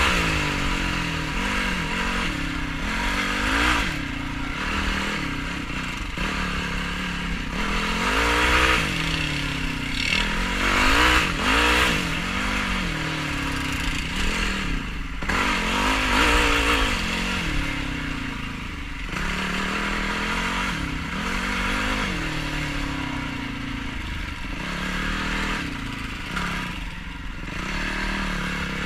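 Yamaha YFZ450R quad's single-cylinder four-stroke engine ridden off-road, revving up and dropping back repeatedly through the gears and throttle changes, with a rushing, clattering noise over it.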